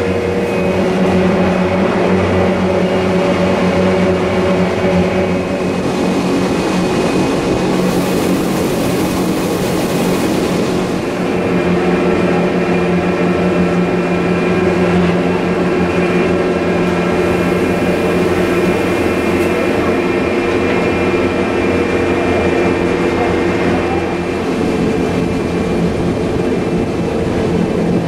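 Electric rack-railway train climbing on its cog track, heard from inside the car: a steady hum and whine from the traction motors and rack gearing, with several held tones over the running noise of wheels on rail. A burst of hiss rises about eight seconds in and eases off a couple of seconds later.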